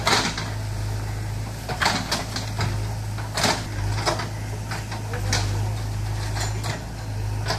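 JCB backhoe loader's diesel engine running steadily as its bucket knocks down a brick wall, bricks clattering and crashing down in scattered knocks throughout.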